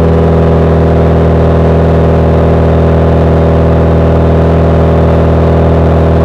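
Straight-piped exhaust of a 2010 Volkswagen CC's 2.0-litre turbocharged four-cylinder, droning loudly and steadily as the car cruises at an even engine speed.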